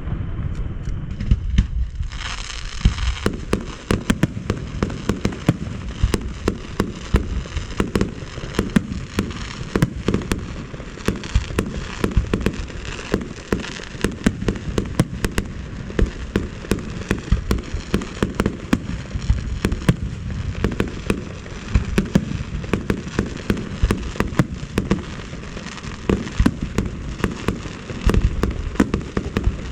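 Fireworks display going off in a rapid, unbroken barrage of sharp bangs, several a second, over a continuous low rumble.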